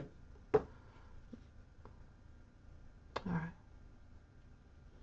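Two short knocks from hands handling the pen and paper on a desk: a sharp click about half a second in and a duller knock about three seconds in. Otherwise only quiet room tone.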